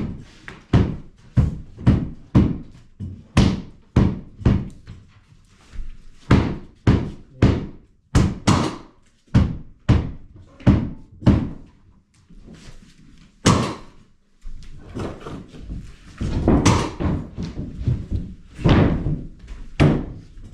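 Hammer blows, a long series of loud, sharp strikes about one and a half a second, in runs broken by short pauses.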